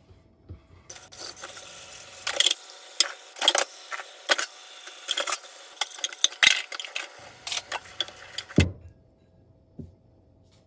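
Dishes being washed at a kitchen sink: a steady rush of running tap water with frequent clinks and knocks of dishes and utensils. It cuts off abruptly near the end with a soft thump.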